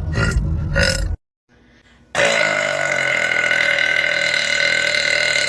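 A woman burping: a quick run of short burps, about two a second, that cuts off about a second in. After a brief pause comes one long, steady burp held for about three and a half seconds.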